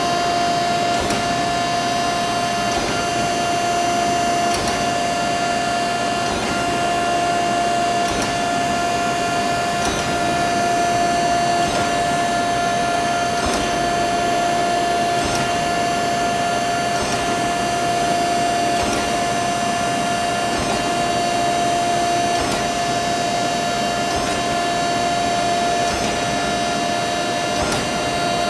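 Okamoto horizontal spindle surface grinder running: a steady whine from the spinning grinding wheel and spindle, with faint clicks every couple of seconds.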